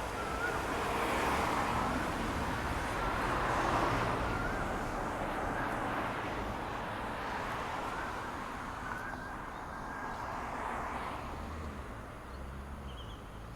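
Road traffic: vehicles passing one after another, their tyre and engine noise swelling and fading, loudest about four seconds in, over a steady low rumble.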